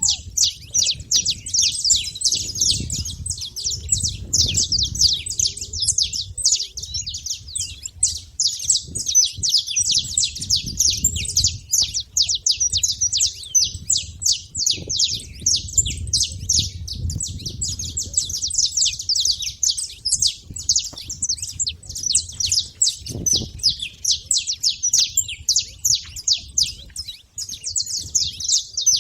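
Saffron finches chirping in a dense, unbroken stream of rapid high calls that overlap one another. A low rumble runs beneath them.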